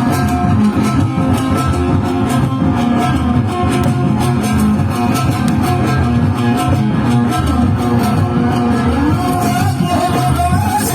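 Loud live party music: a band playing with a steady beat and a held, wavering melody line.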